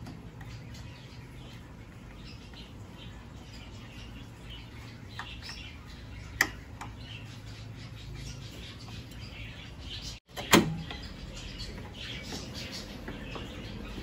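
Small clicks and taps of hands fitting a hood latch switch and its wiring connector, with a sharp click about six seconds in and a louder one about ten and a half seconds in. Birds chirp faintly in the background over a low steady hum.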